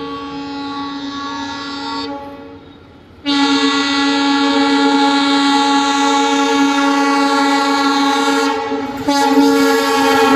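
Indian Railways diesel locomotive horn sounding a long, steady blast that breaks off about two seconds in, then a second, louder long blast from about three seconds on, with a short break near the end.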